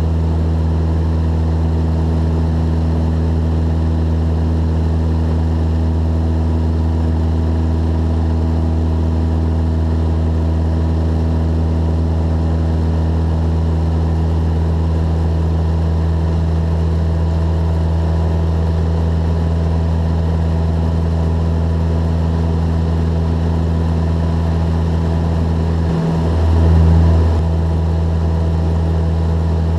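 Jabiru J170's four-cylinder Jabiru 2200 engine and propeller droning steadily in cruise, heard inside the cabin. Near the end comes a brief low thump that swells for about a second.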